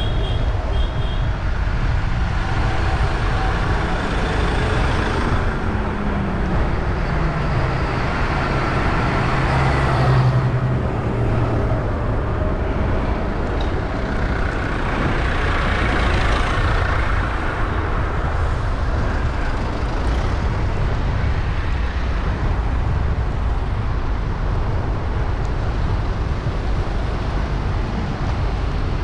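Tractors and other vehicles driving past in a procession, a steady engine rumble throughout. About six to twelve seconds in, one engine note falls in pitch as it passes, and the rumble swells again around sixteen seconds in.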